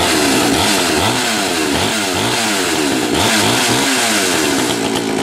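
Pioneer P51 two-stroke chainsaw engine running, revved up and down repeatedly, about twice a second. It is a scrap-picked saw now running after being repaired.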